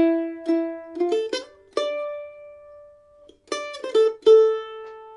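Mandolin picking a single-note jazz melody: a quick run of plucked notes, then a long held note that fades away about three seconds in. After a short gap, a few more plucked notes end on another note that rings on.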